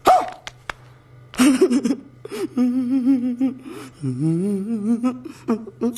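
A man's exaggerated vocal outburst from a film clip: a sudden loud cry at the start, then drawn-out wavering cries, one rising in pitch about four seconds in, over a steady low hum.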